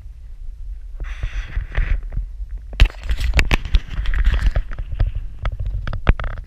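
Wind rumbling on an action camera's microphone, with bursts of rustle and a scatter of sharp knocks and scrapes as the camera on its hand-held pole is handled and swung around.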